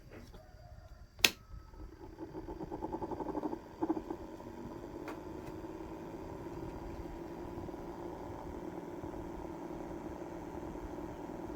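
A sharp click, then the small electric fan motor of a homemade mini air-conditioner model starts up. It pulses unevenly for a couple of seconds, then settles into a steady hum.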